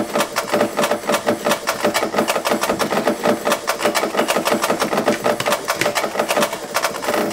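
Make Noise modular synthesizer playing a breakbeat loop resliced through the Morphogene, heard as a fast, stuttering stream of chopped drum hits, about eight to ten a second.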